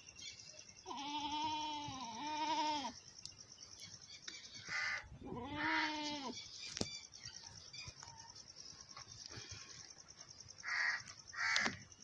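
Goat bleating with a quavering voice, a double bleat about a second in and another in the middle. A few short breathy sounds come between the bleats and near the end.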